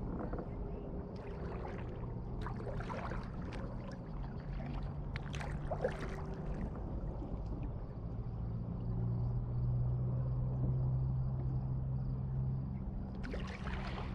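Water lapping and splashing against a kayak's bow as it moves slowly through calm water, heard from just above the waterline, with a steady low hum underneath.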